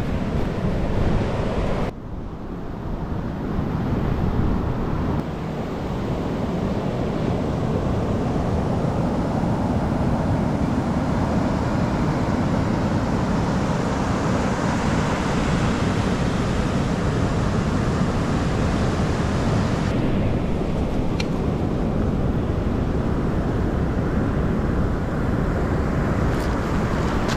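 Heavy surf breaking and washing up the beach, mixed with strong wind buffeting the microphone. The sound changes abruptly about two seconds in and again about two-thirds of the way through.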